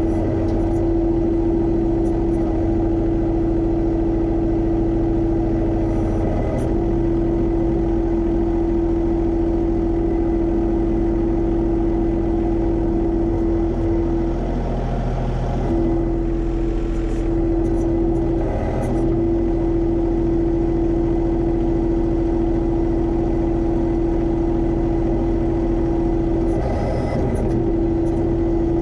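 Diesel engine of a John Deere 1025R compact tractor running at a steady speed, with a steady whine that dips briefly three times.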